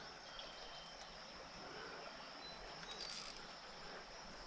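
Quiet creekside ambience: a steady high insect trill over a soft even hiss, with a couple of faint short chirps and a brief high hiss about three seconds in.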